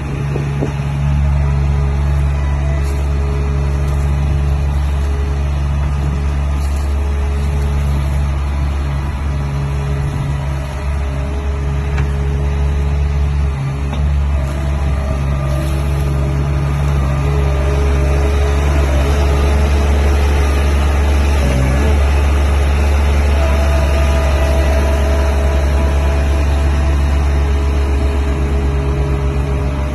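Mini track loader's 25 hp Perkins diesel engine running at a steady speed, a continuous loud low hum.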